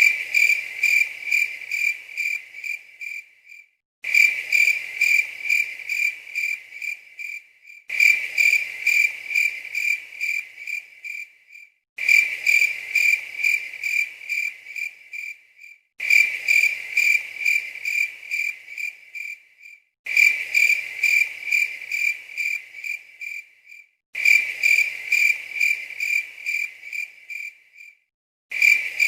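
Cricket chirping, a high-pitched steady pulse of about three chirps a second. It comes in runs of a few seconds that fade out and break off into a brief silence, repeating every four seconds as a looped sound effect.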